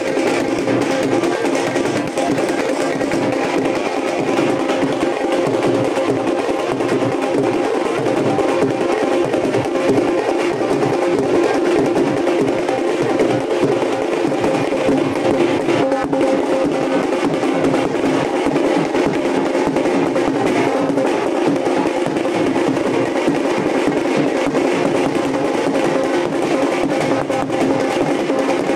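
Loud, continuous music with fast drumming over a steady drone, without a break.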